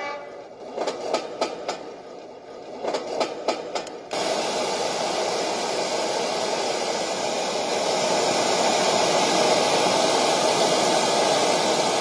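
Portable rechargeable white noise machine playing its train sound through its small speaker, a few spaced wheel clacks, then about four seconds in it cuts abruptly to a steady white-noise hiss that holds to the end.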